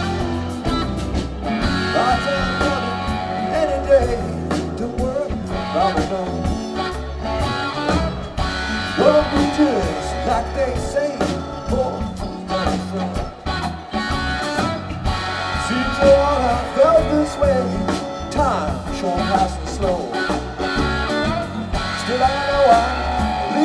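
Live rock band playing an instrumental stretch: an electric guitar lead with bending notes over drums and keyboards.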